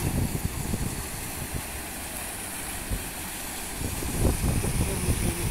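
Fountain jets splashing into a stone basin, heard as a steady hiss of water over a low, uneven rumble.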